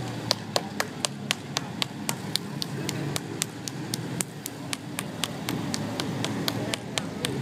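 One person clapping steadily, about four claps a second, over the low rumble of motorcycles coming across the bridge.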